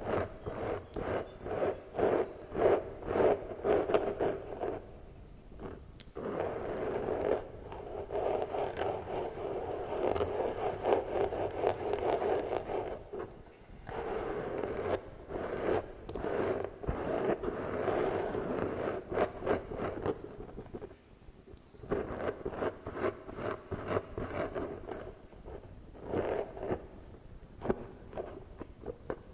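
ASMR trigger sounds: rapid scratching and brushing strokes close on the microphone, coming in stretches of a few seconds with short pauses between them.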